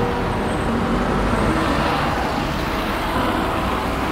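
Steady city traffic noise: cars running along a busy multi-lane road.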